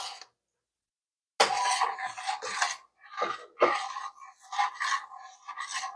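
Metal spoon stirring oatmeal in a stainless steel saucepan, scraping against the pot in repeated strokes that begin about a second and a half in.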